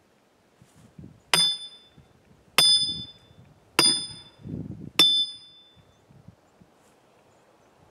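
Hammer striking an improvised steel wedge driven into a saw cut in a pecan log: four ringing metal-on-metal clangs about a second and a quarter apart. The blows drive the wedge in to spread the kerf and relieve the pinch on the saw.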